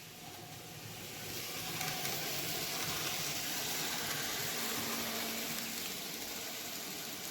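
N-scale model train running on Kato superelevated double-track curves, giving a hissing whir of small wheels and motor. It grows louder about a second in and eases off a little near the end, as if passing close by.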